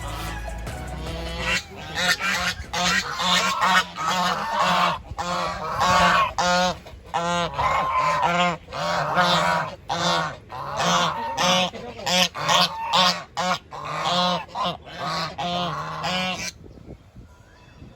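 Farm fowl calling loudly and repeatedly, two or three short honking calls a second, which cut off suddenly near the end.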